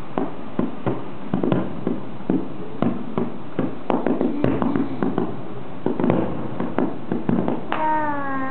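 Fireworks popping and crackling in irregular sharp bursts, a few a second, over a steady hiss. Near the end a drawn-out pitched sound starts and falls in pitch.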